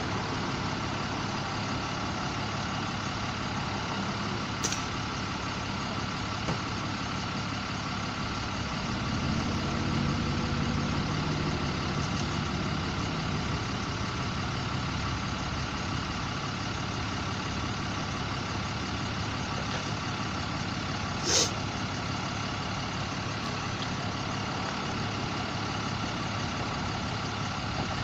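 Steady hum of idling vehicle engines and street traffic, with a vehicle passing louder about ten seconds in. Two brief sharp clicks, one early and one about three quarters of the way through.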